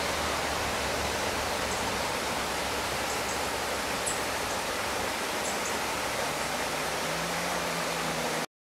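Shallow river rushing over boulders: a steady rushing noise, with a few faint high chirps over it. It cuts off suddenly near the end.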